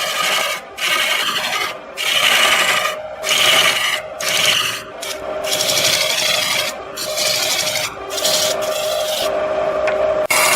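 Wood turning on a lathe being worked with a tool or abrasive: a loud rasping rub in repeated passes, broken every second or so by short breaks, over a faint steady hum.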